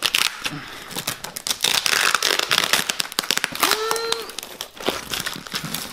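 Cardboard parcel and its packaging being cut and torn open by hand, a dense run of crackling rips and clicks. A short grunt about four seconds in.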